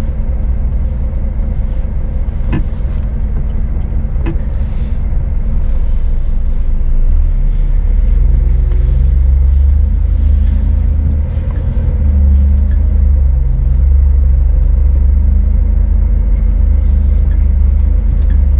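Heavy diesel truck engine idling steadily close by, a low rumble that grows heavier about seven seconds in.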